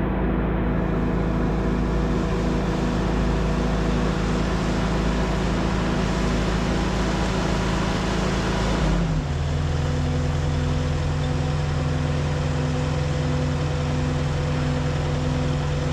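An engine running steadily that drops to a lower, steady speed about nine seconds in.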